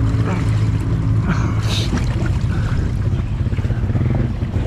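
Off-road vehicle engine idling steadily, with a short hiss about two seconds in.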